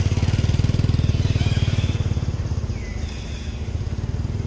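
A small motor engine running with a fast, even low putter, loudest in the first two seconds and then easing off, with a few faint high chirps above it.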